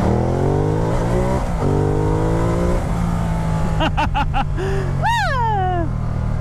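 Ducati Multistrada 1200's 1198 cc L-twin engine accelerating hard in first gear, its pitch rising, then dropping at an upshift to second about a second and a half in and climbing again before settling to a steady cruise, with wind rush. A brief voice is heard near the end.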